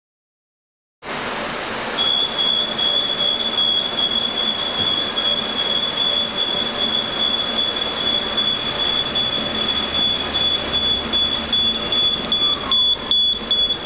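Steady machinery noise of a large warehouse, starting suddenly about a second in. A continuous high-pitched electronic tone runs over it from about two seconds in and breaks off briefly twice near the end.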